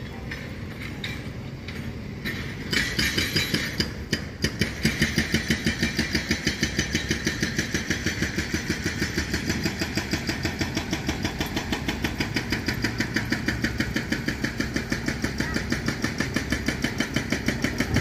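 An engine running at a slow, steady beat of about four to five thuds a second, coming in about three seconds in.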